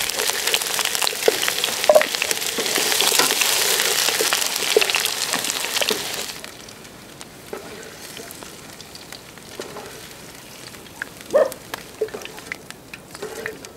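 Potato slices frying in hot oil in a pan over a campfire. A loud sizzle drops suddenly to a quieter one about six seconds in. Short knocks and scrapes of a wooden spatula stirring the potatoes come through, the sharpest near the end.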